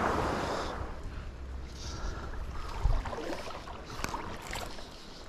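Creek water rushing loudly at first, fading after about a second, then a few faint knocks and rustles over low wind rumble on the microphone.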